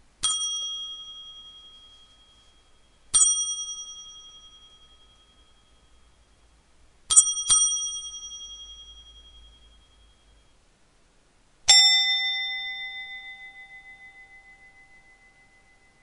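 Table bell struck five times: two single rings about three seconds apart, then a quick double ring, and near the end one lower-pitched ring that sustains longer. Each ring is a bright metallic ding that fades away over a few seconds.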